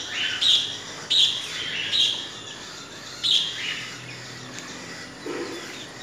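Young desi chickens peeping, a string of loud, high calls that fall in pitch, coming about every half second at first and then more sparsely.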